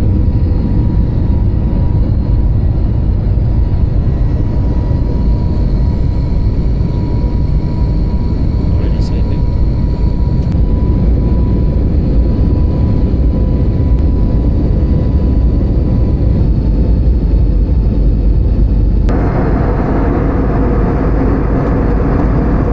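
Airliner cabin noise: a loud, steady low rumble of the aircraft with a faint steady tone over it, which changes character about nineteen seconds in as more mid-range noise comes in.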